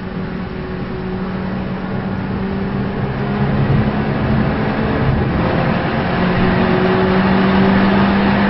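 Race car engine running hard, heard from inside the cockpit: a steady drone that grows gradually louder, with a hiss of tyre and road noise rising in the second half.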